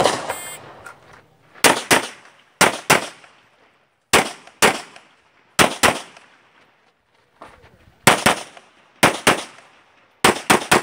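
Glock 34 9mm pistol firing a USPSA course of fire: sharp shots, mostly in quick pairs about a quarter-second apart, with pauses of roughly a second between pairs, each followed by a short echo.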